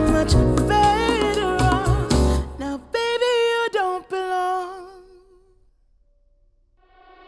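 Pop song with a sung melodic line over a beat and bass, ending on held notes with vibrato and fading to near silence. A new track with sustained chords starts near the end. It is played through HIFIMAN Sundara planar-magnetic headphones and picked up by microphones.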